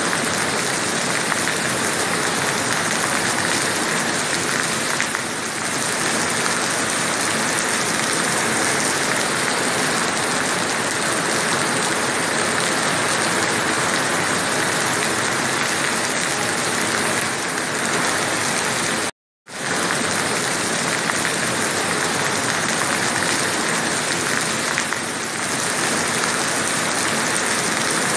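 Heavy rain falling steadily, a dense even hiss, with a split-second silent break about two-thirds of the way through.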